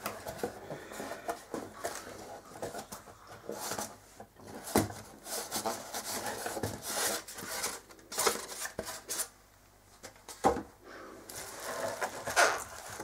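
A cardboard box being unpacked by hand: flaps and paper rustling and a styrofoam insert scraping as it is lifted out, with a couple of sharp knocks.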